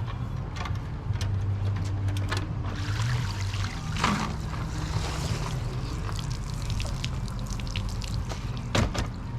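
Water pouring and trickling off pool vacuum gear as it is pulled out of the pool, with scattered clicks and knocks over a steady low hum.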